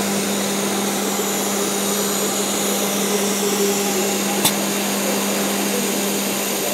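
Steady whirring hum of a SINMIC 2030ATC CNC router with a linear automatic tool changer while its gantry moves along the tool rack, with one sharp click about two-thirds of the way in.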